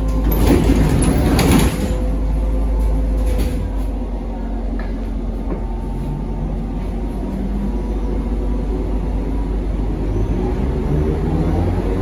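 Cabin sound of a ZiU-682V-012 trolleybus: a steady electrical hum with a burst of air hiss about half a second in, and a whine rising in pitch near the end.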